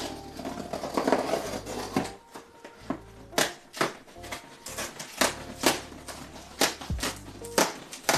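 A blunt knife scraping and sawing along the edge of a cardboard box lid, cutting it open. It starts as a rough scrape, then breaks into a run of sharp clicks and snaps, about two a second.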